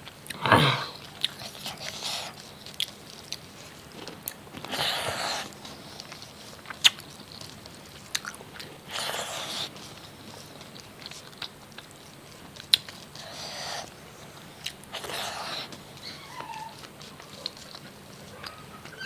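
A person eating fried fish: chewing and biting, with a short burst of crunching every few seconds and small clicks between them.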